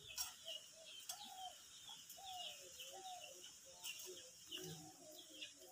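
Birds chirping over and over, with lower calls underneath and a few faint sharp clicks.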